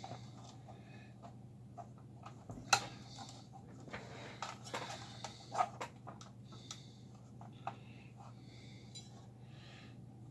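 Light clicks and taps of small metal parts and hand tools being handled inside an amplifier chassis during repair work, with a few sharper clicks, over a steady low hum.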